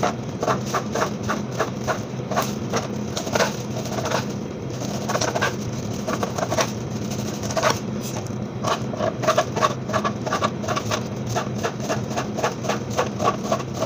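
Kitchen knife cutting raw chicken breast into small pieces on a plastic cutting board: a quick, uneven run of taps as the blade strikes the board, over a steady low hum.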